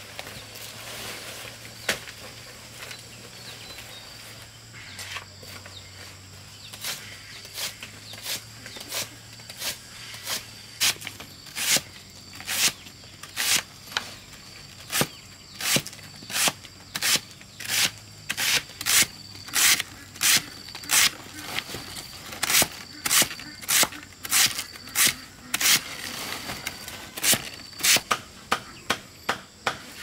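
A run of sharp strikes, sparse at first and then regular at about two a second, with insects chirring steadily behind them.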